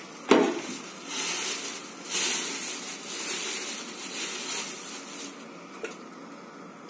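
A single sharp knock as a container is set down, then a plastic bag rustling and crinkling in bursts as a hand rummages in it for potatoes, dying down near the end.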